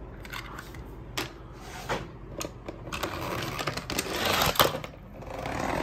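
Scattered clicks, rattles and rustling of small plastic and cardboard objects being handled, as toy packaging is opened.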